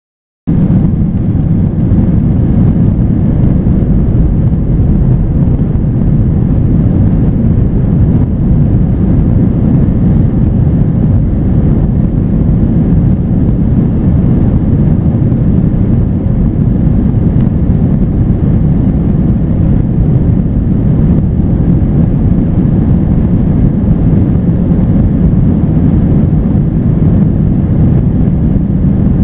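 Steady cabin noise inside a jet airliner in flight: the low, even rumble of the engines and airflow, starting abruptly about half a second in.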